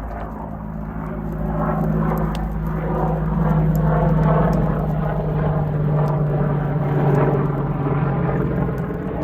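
Aircraft engine droning overhead, a steady hum that swells to its loudest in the middle and fades a little near the end.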